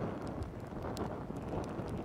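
Wind rushing over the microphone, with scattered sharp crackles of small wood burning in a Firebox twig stove.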